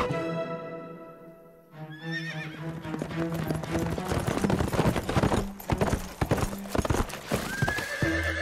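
Horse hooves galloping in a fast run of clip-clop hoofbeats, with a horse whinnying about two seconds in, over background music.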